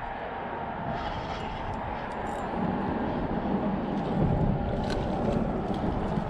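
Steady rumble of traffic on the road bridge overhead. A hooked mangrove snapper splashes at the surface of the water about halfway through.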